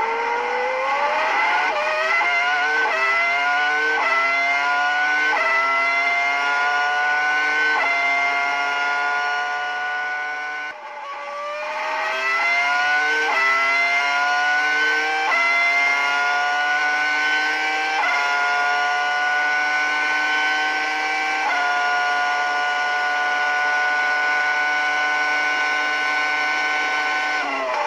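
Ferrari Formula One V10 engine at full throttle, revs climbing and stepping down through a quick run of upshifts. About eleven seconds in it lifts off briefly, then climbs through the gears again and holds steady at high revs before easing off near the end.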